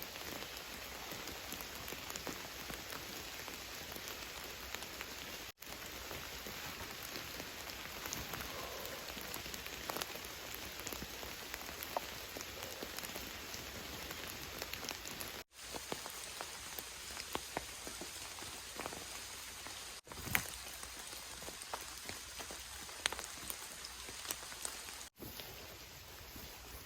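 Heavy rain falling steadily, with many individual drops ticking sharply over the hiss. The sound cuts out for an instant four times.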